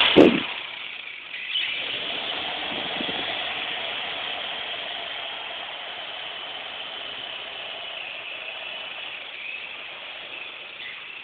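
Small toy RC helicopter's electric motors and rotors whining steadily in a hover, slowly getting quieter as the battery runs down. A sharp knock, the loudest sound, comes just after the start.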